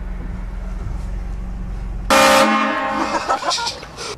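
Low hum of the vehicle, then about two seconds in a sudden loud blast from a compressor-fed train horn kit mounted on the vehicle, several steady tones sounding together, held for about a second and a half before trailing off.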